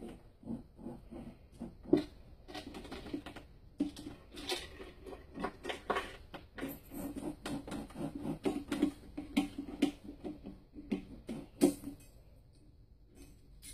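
Homemade wrist roller in use, its bar turning in the wooden frame as the cord to the cement blocks winds and unwinds, giving a run of irregular clicks and creaks, with two sharper knocks, about two seconds in and near the end.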